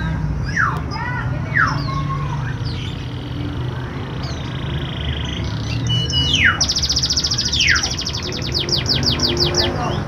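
Domestic canary singing: whistled notes that sweep down in pitch, a held high note in the middle, then from about seven seconds a fast trill that slows toward the end.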